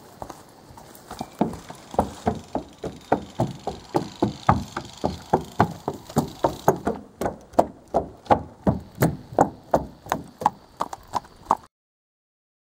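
Hoofbeats of a palomino quarter horse gelding walking, a steady run of sharp strikes about three a second. They cut off suddenly near the end.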